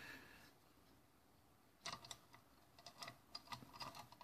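Faint, irregular clicks and light taps from hands working the metal parts of a Gambler cigarette-making machine's injector mechanism, starting about two seconds in and coming more often toward the end.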